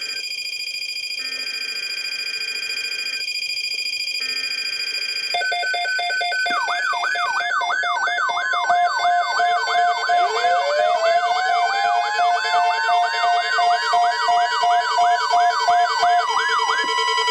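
Several sirens sounding together. A steady multi-tone alert is joined about five seconds in by pulsing tones, then by a fast yelping siren sweeping up and down about three times a second. From about ten seconds in, another siren winds up in pitch.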